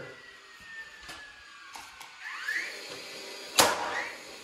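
DeWalt cordless brushless nailer driving a 3 1/4-inch construction nail into 2x4 framing: a short rising whine from the tool, then one sharp crack as the nail fires, about three and a half seconds in.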